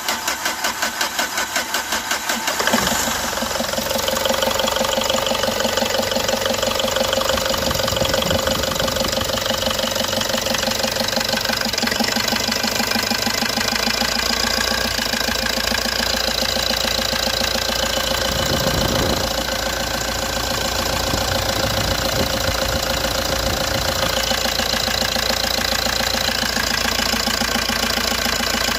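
Mahindra Scorpio's 2.6-litre common-rail diesel engine cranking on the starter for about three seconds, then catching and settling into a steady idle. The slightly long crank is put down to the freshly serviced injectors that have just been fitted.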